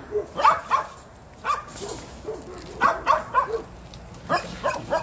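Small dog barking and yelping in short flurries of several quick barks each, as it is pulled along on a leash against its will.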